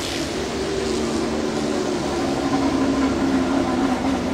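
Racing motorcycle engine running as a bike moves past close by, its pitch falling slowly.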